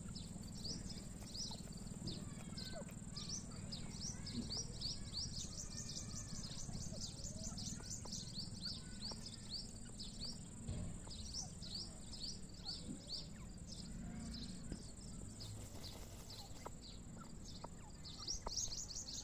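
Birds chirping: long runs of short, high chirps, several a second, that pause and resume, over a steady high hiss and a low rumble.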